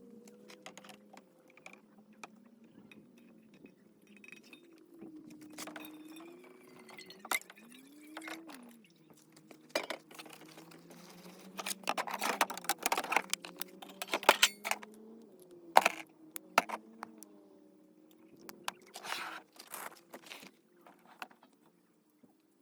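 Irregular clicks, knocks and rustling of objects being handled, busiest in the middle of the stretch, over faint wavering tones.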